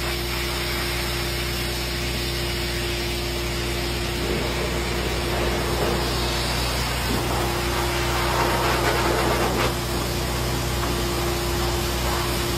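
Steady drone of a motor running in a mobile grooming van, with a constant hum and an even whooshing noise.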